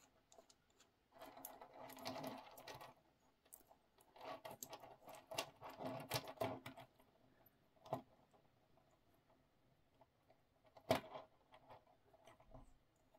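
Metal link watch bracelet being sized with a pin-removal tool: small metallic clicks and rattles of the links and tool in two bursts, then one sharp click about eleven seconds in.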